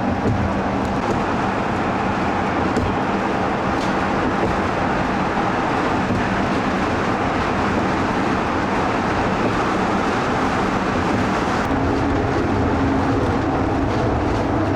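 Steady running noise of a moving vehicle, with a low hum that shifts higher near the end.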